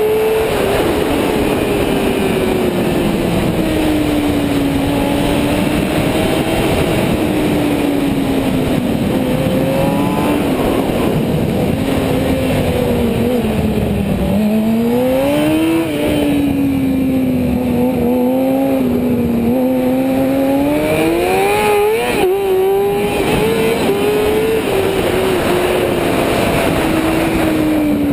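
Sport motorcycle engine heard from the rider's helmet, its revs falling and rising again and again as the bike slows for corners and accelerates out, over a constant rush of wind and road noise.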